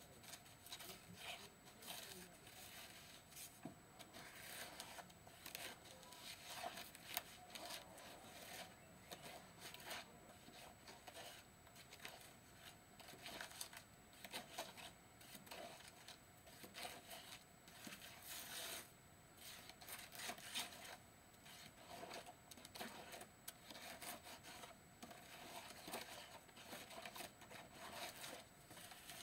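Faint, irregular clicks and scrapes of small stones being handled and pressed into a wet mix to build up a miniature stone wall.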